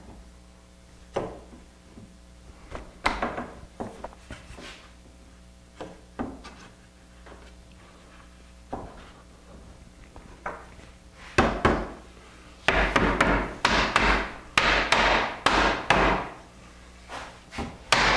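A mallet knocking a wooden rail down onto its dowels to seat a dry-fitted frame joint. A few scattered taps come first, then a quick run of sharp knocks, about two or three a second, in the second half.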